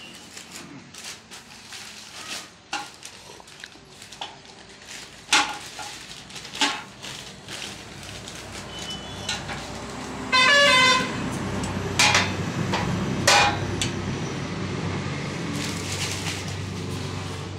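Stiff brown kraft paper and cardboard packing being handled and pulled off a sewing machine table: crinkling and rustling with sharp knocks of cardboard. About ten seconds in, a vehicle horn honks once, briefly, and a low rumble follows.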